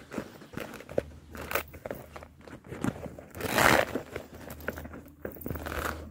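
Gift wrapping and a handbag being handled: crinkling and rustling with many small clicks and taps. The loudest crinkle comes a little past halfway.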